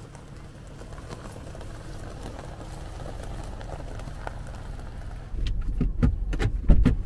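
Kia Ray minivan rolling slowly over gravel, tyres crunching with faint scattered pops of stones, growing a little louder as it approaches. About five seconds in it changes to the low engine and road rumble heard inside the car's cabin.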